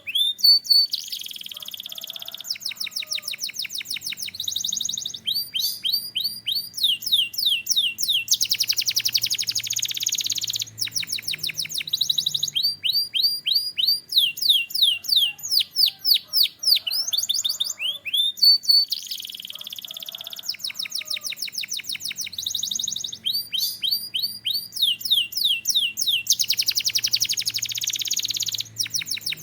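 Canary singing a continuous song of fast trills, rolls and rapidly repeated sweeping notes, high-pitched. The same run of phrases comes round again about two-thirds of the way through.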